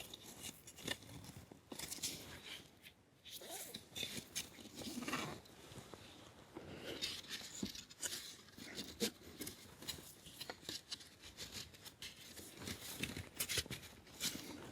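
Faint, irregular rustling and clicking as straps are pulled through and fastened to join the two concertina wall sections of a yurt.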